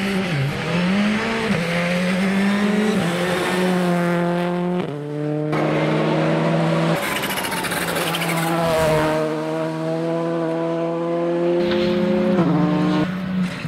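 Rally car engines accelerating hard through the gears. The pitch climbs in each gear and drops at each shift, and the sound jumps abruptly a few times between passes.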